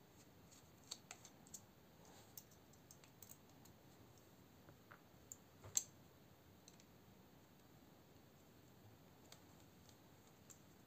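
Faint, scattered light clicks and ticks of a Torx screwdriver bit turning in the small screws of a folding knife as they are backed out, with the knife handled in the fingers. One click, a little past halfway, is sharper than the rest; the clicks thin out in the second half.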